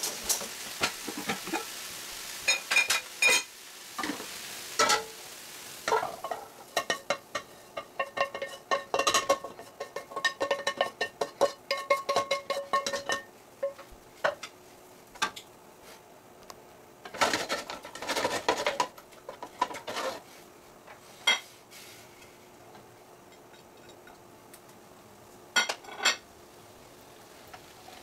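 Ground meat and chopped vegetables sizzling in a frying pan, stirred with a wooden spoon against the pan in quick runs of scraping and clatter. The sizzle is strongest in the first few seconds, and single knocks of utensils and dishes come near the end.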